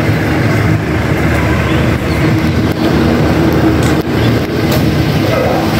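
A vehicle engine running close by: a steady low rumble, with a few short knocks along the way.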